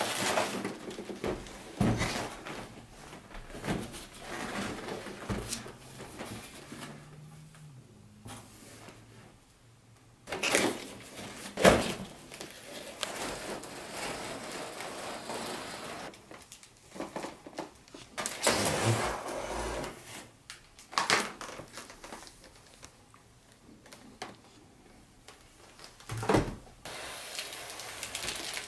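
Packaging being handled and opened: irregular knocks, clicks, slides and rustles, with the sharpest knock near the middle.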